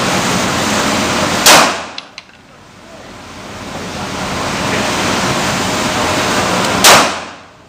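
Two 9mm shots from a Glock 17 pistol, about five and a half seconds apart, each a sharp crack. After each shot the steady background hiss drops away and slowly swells back as the recording's gain recovers.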